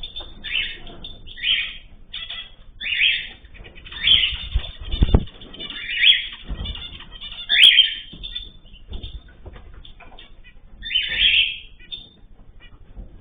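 Ornamental cage birds calling in short, rough chirps about once a second, with some wing fluttering.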